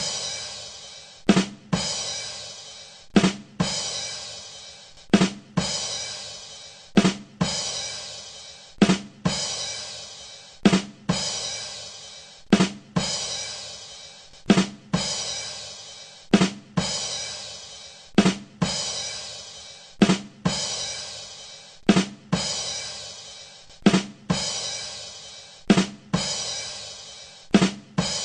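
'Ba dum tss' rimshot drum sting on a drum kit: two quick drum hits and a cymbal crash that rings out, repeated over and over about every two seconds.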